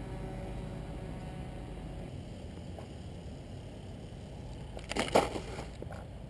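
A steady low rumble, then about five seconds in a brief, loud crunching rustle as the foam flying wing touches down and skids into the dry crop stalks.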